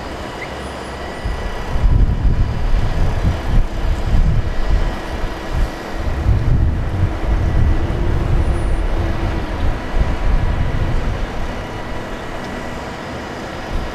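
Heavy mobile crane's diesel engine running under load while it holds and swings a suspended locomotive, with an uneven low rumble that swells and fades and a slight rise in engine pitch around the middle.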